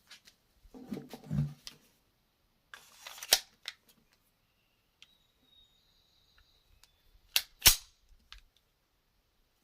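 SIG P226 pistol's slide being racked by hand to cycle blue .22LR dummy rounds. Handling noise comes first, then a sharp metallic click about three seconds in, and a quick pair of sharp clicks near the end.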